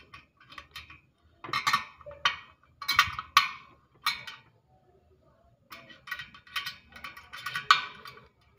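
Spoke wrench clinking on the spoke nipples and steel spokes of a chrome motorcycle rim as the nipples are tightened two turns at a time to true the wheel. Short clusters of sharp metallic clicks with a brief pause about halfway through.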